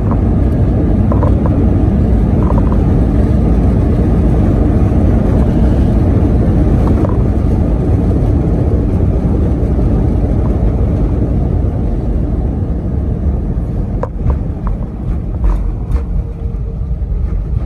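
Cabin noise inside an Airbus A319-132 on its landing rollout: a loud, steady low rumble of the IAE V2500 engines and the wheels on the runway. It eases off a little in the last few seconds as the airliner slows, with a few faint rattles near the end.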